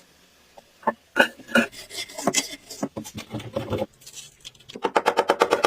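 Irregular clicks and knocks of a small mechanism being handled, then, near the end, a fast, even mechanical clatter of about ten strokes a second as a small machine starts running.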